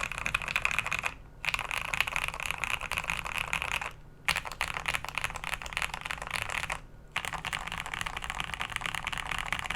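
Fast typing on a Royal Kludge RK100 mechanical keyboard with lubed switches, lubed stock stabilisers, and PE foam, two-layer tape and polyfill mods: dense runs of keystrokes broken by three short pauses.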